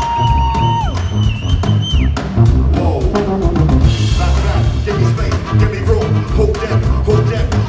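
Live band of saxophone, tuba and two drum kits playing a heavy drum groove. Two high held notes fall away and stop, about one and two seconds in.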